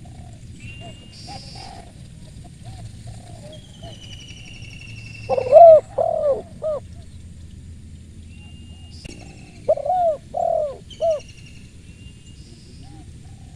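Spotted dove cooing, two phrases of about four notes each, the first note of each phrase the loudest. Other small birds chirp and whistle higher up, with fainter distant coos.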